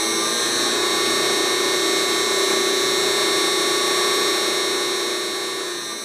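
Three-phase gear motor running steadily under a variable frequency drive: a low hum with a high, steady whine above it. It fades out near the end.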